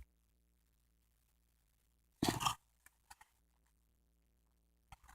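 Mostly quiet, with one short rustle about two seconds in and a few faint clicks just after it.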